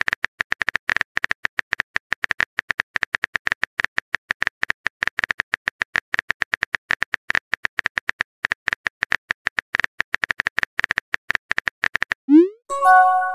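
Simulated phone keyboard clicks from a texting-story app: rapid, irregular taps, several a second, as a message is typed out letter by letter. Near the end comes a short rising swoosh, followed by a bright chime of a few tones as the message is sent.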